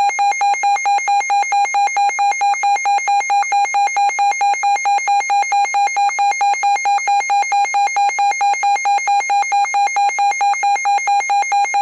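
Emergency alert attention tone: a single loud, buzzy tone at one fixed pitch, pulsing rapidly and evenly without a break.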